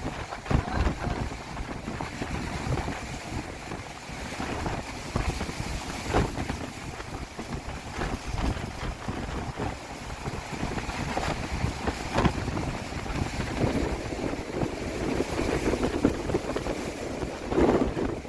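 Strong, gusty cyclone wind buffeting the microphone in uneven blasts over a constant rushing noise.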